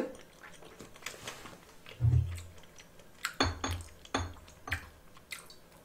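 Scattered light clicks and knocks of tableware being handled, with a few dull thumps, the first about two seconds in.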